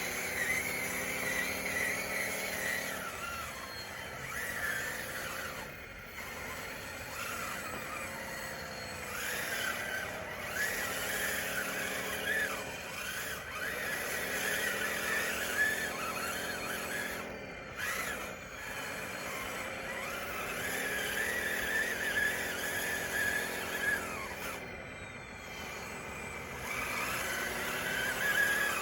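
DXR2 RC bulldozer's drive motors and gearing whining as it works. The whine rises and falls in pitch about every three seconds as the machine speeds up and slows down, with a high squeal over it.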